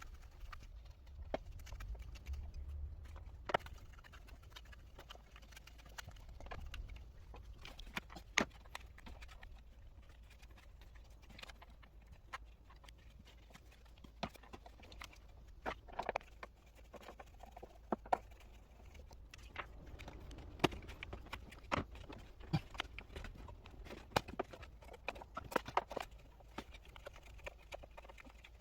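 Scattered light clicks and knocks of hands working on a car's engine air filter housing, irregular and growing busier about halfway through, over a low steady hum.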